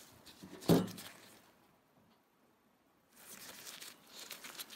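Rustling and rubbing of nitrile-gloved hands handling a steel cold chisel, in a short stretch near the start and a longer one from about three seconds in, with a single short thump under a second in.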